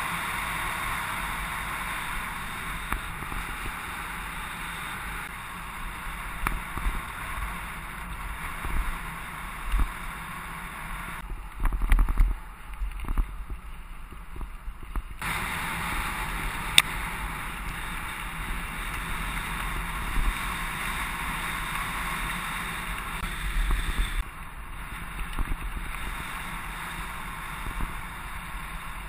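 Wind rushing over the microphone and bicycle tyres rumbling on a gravel and dirt track, with scattered knocks and rattles over bumps. The wind noise drops away for a few seconds near the middle, leaving heavier low thumps, and there is one sharp click shortly after.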